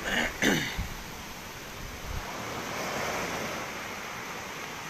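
Rough surf whipped up by Tropical Storm Pabuk, breaking and washing up the beach in a steady rush, with wind on the microphone. A short, louder sound with a falling pitch cuts in about half a second in.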